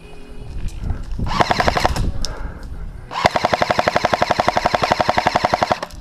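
Airsoft gun firing on full auto: a short burst about a second in, then a longer, even, rapid burst of nearly three seconds that cuts off just before the end.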